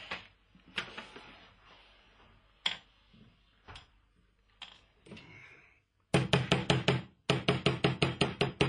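Small jeweller's hammer tapping rapidly on metal at a goldsmith's bench, about seven light strikes a second in two runs starting about six seconds in. Before that, a few scattered clicks and taps of small tools on the workbench.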